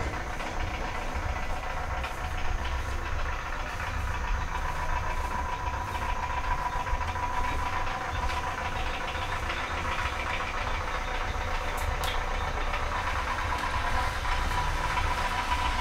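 A vehicle engine running steadily: an even low rumble with a constant thin hum over it.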